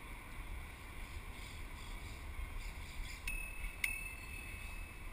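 Wind rumble and rolling noise on a camera riding on a moving bicycle; a little over three seconds in, a bicycle bell is struck twice in quick succession, its high ring lingering.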